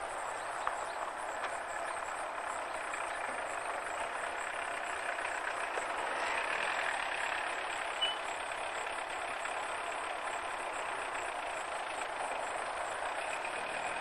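Distant freight train hauled by EMD SD45-2 diesel locomotives running past: a steady, even drone. A brief high chirp about eight seconds in.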